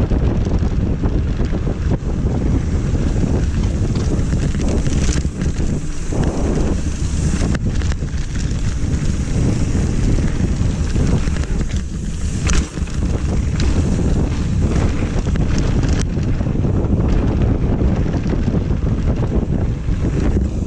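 Wind blasting the microphone of a camera on a mountain bike riding fast down a gravel trail, with steady tyre rumble on the dirt. There are a few sharp knocks from the bike rattling over bumps, the clearest about halfway through.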